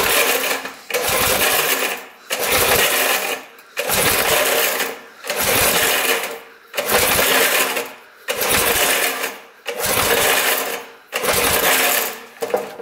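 5 hp Briggs & Stratton engine cranked over repeatedly on its pull-start rope for a compression test, about eight pulls, roughly one every second and a half. Compression reads low at about 60–65 psi, which the owner puts down to piston rings that are a little stuck.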